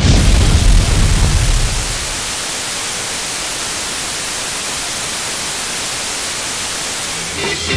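A sudden blast with a deep rumble that dies away over about two seconds, giving way to a steady hiss of radio static: the sound effect of the radio set blowing up and going dead.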